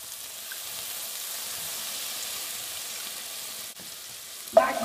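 Lemon juice sizzling as it hits a hot frying pan of chicken drippings and ground spices: a steady hiss.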